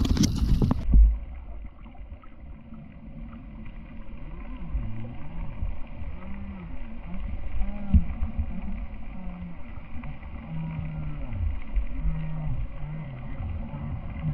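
Muffled underwater sound: a low haze of water noise with faint low tones that waver up and down, after a brief loud splashy burst at the very start that cuts off suddenly about a second in.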